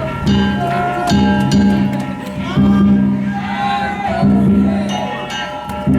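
Danjiri festival-cart music: the cart's big taiko drum struck about once a second, each hit booming on, under the steady ringing of small hand gongs. Voices call out around the middle.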